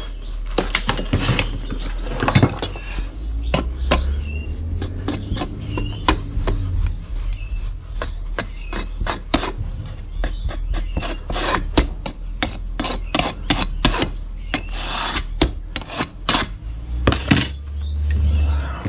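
Hand work on a metal moulding box of greensand: a metal bar scraped and knocked against the flask, giving many sharp clicks and scrapes, with a compressed-air blow gun blowing loose sand away at the start. A louder rushing sound comes near the end.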